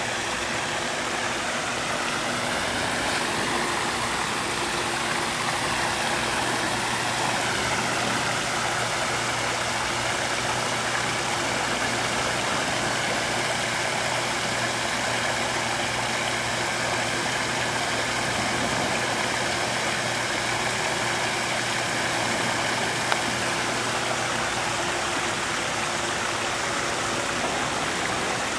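A motor running steadily with a low hum, under a constant rushing noise; its higher pitch drifts a little in the first several seconds.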